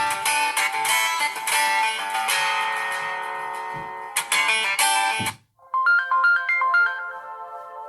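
LG V30 ringtones playing: a guitar-strummed ringtone that cuts off about five seconds in, then, after a brief gap, a different ringtone with a bright melody of short stepping tones.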